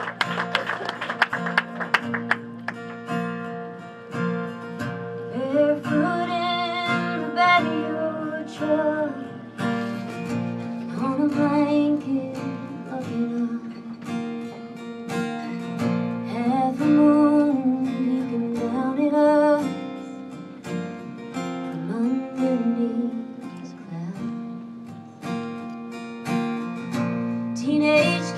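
Acoustic guitar strummed and picked, with a woman singing a slow country song over it from about five seconds in.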